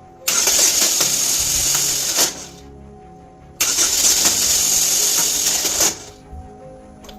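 Failing reduction-gear starter on a 2013 GMC Terrain's 2.4-litre Ecotec, engaged twice, each time a loud, harsh whir lasting about two seconds. This is how a worn-out reduction-gear starter sounds.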